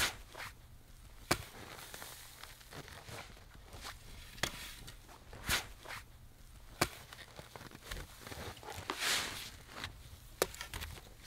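Plastic snow shovel digging into and tossing snow: irregular sharp crunches a second or more apart, with a longer scrape about nine seconds in, mixed with footsteps crunching in the snow.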